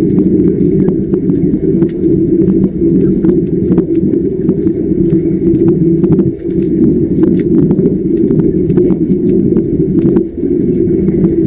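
Underwater arc welding: a loud, muffled rumble of gas bubbling from the arc, with irregular crackling clicks.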